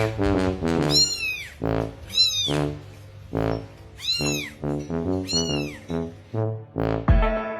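A domestic cat meowing several times, each meow rising and falling in pitch, over background music with stepping low notes. Near the end a different music track with a beat comes in.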